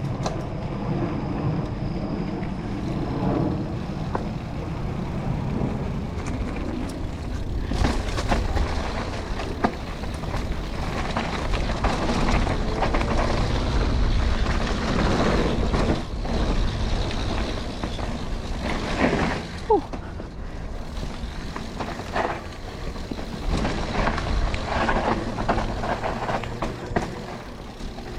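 Mountain bike running fast down a steep dirt trail: a steady low rumble of rolling and wind, with frequent clattering knocks from the tyres and frame over rough ground. A brief squeal glides in pitch about two-thirds of the way through.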